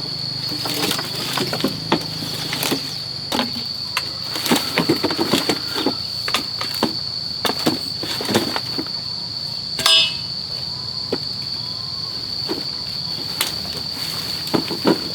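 Steady high-pitched insect drone, with irregular knocks and clatter from handwork over it and one sharper ringing knock about ten seconds in.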